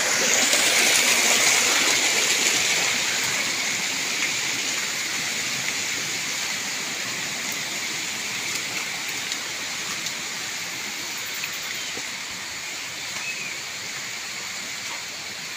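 Small forest stream splashing down over rocks: a steady rush of running water that grows gradually fainter.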